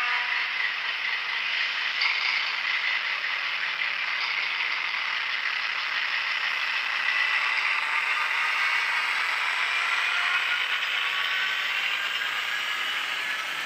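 TT-scale Tillig model of a class 740 diesel locomotive hauling coal hopper wagons around the track. Its motor, gears and wheels give a steady mechanical whirr and rattle, joined by faint humming tones in the second half.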